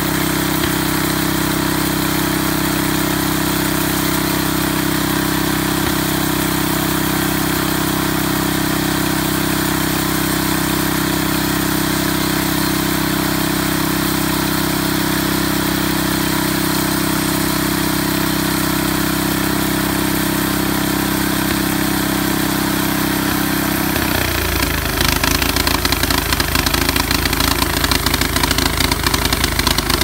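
Small gasoline engine of a homemade band sawmill running at a steady speed, driving the band blade through a palm stump. About 24 seconds in, the engine note drops to a lower, rougher, pulsing idle.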